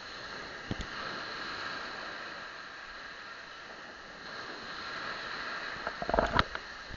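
Handling noise from a phone in a waterproof case: a steady hiss with a single knock about a second in, and a louder cluster of knocks and rubbing near the end.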